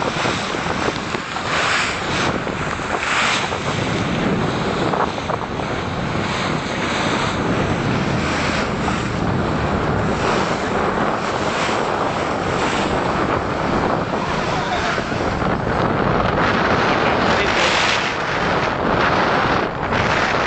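Wind buffeting the microphone over the rush and splash of water along a boat's hull on open bay water, with brief louder swells every few seconds.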